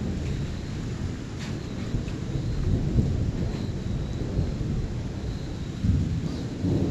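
Thunder rumbling low and continuous during an electrical storm, swelling louder about six seconds in and again near the end.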